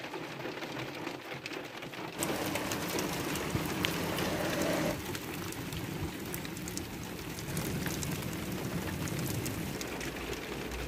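Hail pelting a car's roof and windshield, heard from inside the car: a dense patter of small hits over a steady hiss, louder from about two seconds in until about five seconds in.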